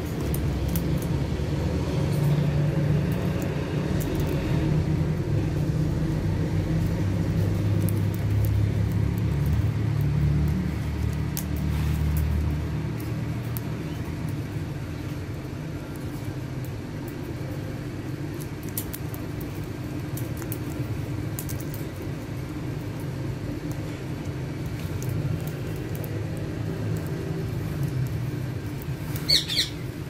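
A steady low rumble, stronger for the first dozen seconds and then fainter, with one short, sharp squawk from an Alexandrine parakeet near the end.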